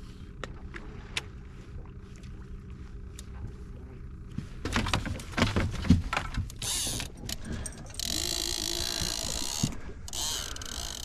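Knocks and thumps of quick footsteps and gear on a fishing boat's deck as a bent rod is grabbed, then a fishing reel buzzing steadily with a hooked musky on the line, in two stretches of a couple of seconds each.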